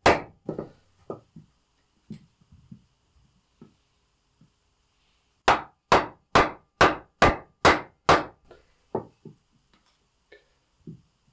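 Wooden club striking the back of a Fiskars X7 hatchet head, driving the blade into the end grain of a log to start a split line. One strong blow at the start and a few light taps, then a run of about seven hard blows a little over two a second in the middle, tapering to lighter knocks near the end.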